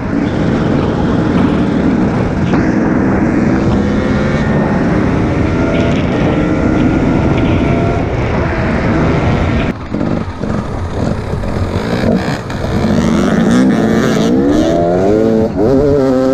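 Enduro motorcycle engine running steadily at cruising speed with wind noise. About ten seconds in the sound changes abruptly to an enduro bike revving hard, its pitch rising and falling again and again as it climbs a steep loose gravel slope.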